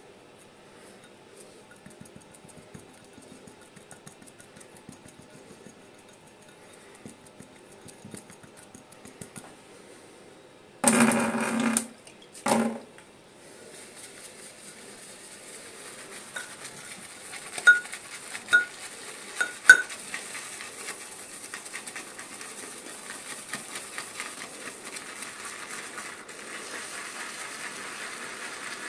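Shaving brush whipping soap into lather in a ceramic bowl: a steady wet swishing that grows louder and fuller as the lather builds, with a few sharp knocks of the brush against the bowl. Earlier, fingers rub the soap into the bowl faintly, and two short loud rushes of noise come about a third of the way in.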